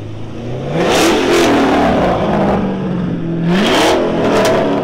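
Car engine revving up twice: it climbs from idle about a second in, holds a steady note, then climbs sharply again near the end before easing off, loud exhaust with each rise.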